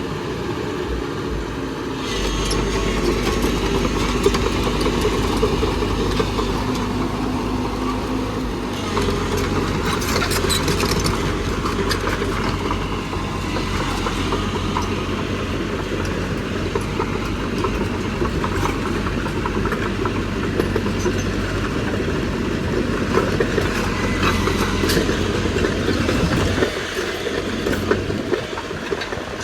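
JCB NXT 140 tracked excavator's diesel engine running steadily under working load, with scattered clanks and scraping from the machine as it digs.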